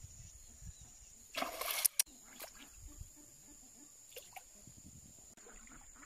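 Hooked grass carp splashing at the surface as it fights the line, with one short splash about one and a half seconds in and smaller water sounds around it. A faint steady high tone runs behind.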